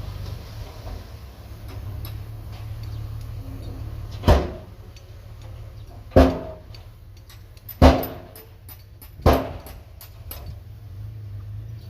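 Heavy diesel earthmoving machinery running steadily at low revs, with four loud bangs that ring briefly, spaced about one and a half to two seconds apart in the second half of the stretch.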